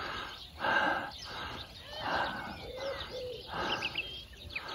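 Birds in a garden: a dove-like low cooing in two short arched notes about two-thirds of the way through, and a few small high chirps near the end. Soft swishes of noise come and go throughout, the loudest about half a second in.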